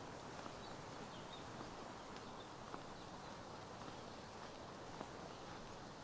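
Faint footsteps of a person walking on a path, a soft step every second or so, over a steady outdoor hiss.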